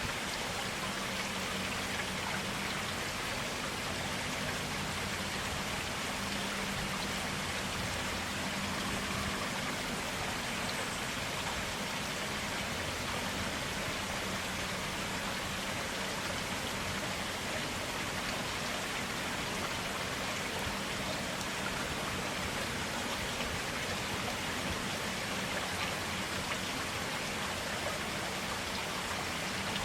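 Stream water flowing steadily, a clear, even splashing and babbling.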